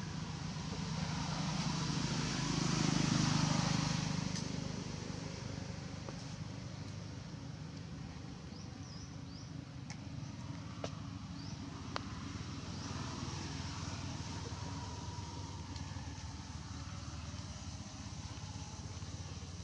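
A motor vehicle passing by, its engine noise swelling to a peak about three seconds in and fading away, over a steady low engine hum. A few sharp clicks later on.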